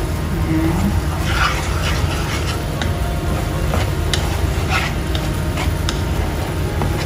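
Wooden slotted spatula stirring and scraping through a bubbling soy-sauce, sugar and garlic sauce in a nonstick frying pan, over a steady simmering sizzle, as the sugar is cooked until it melts. The spatula strokes come as short, irregular scrapes.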